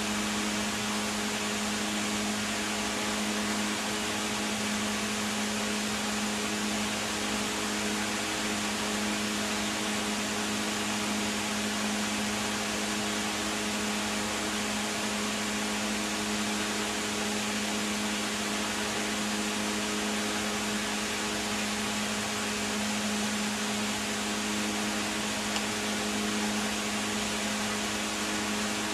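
Steady, unchanging machine hum with an even hiss over it.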